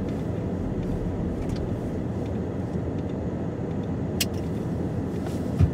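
Steady low rumble of a car rolling slowly, heard from inside the cabin, with one sharp click about four seconds in and a short thump at the very end.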